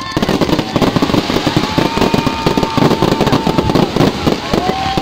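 Fireworks display: a dense run of crackling and popping from many bursting shells and fountains. A long, steady whistle-like tone sounds through the middle, and another starts near the end.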